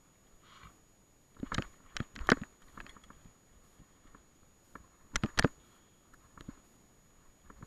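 Mountain bike knocking and rattling over a rough, stony trail: a few sharp clatters about a second and a half to two seconds in, and another close pair about five seconds in, with little between them.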